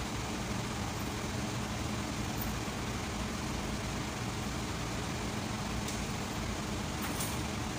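A steady mechanical hum with a faint low drone that does not change, and two faint high ticks near the end.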